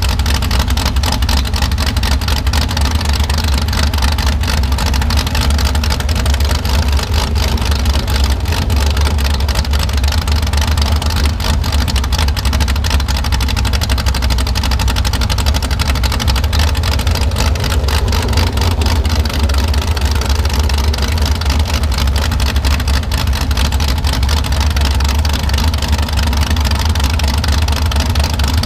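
Mini rod pulling tractor's naturally aspirated engine running loud and steady throughout.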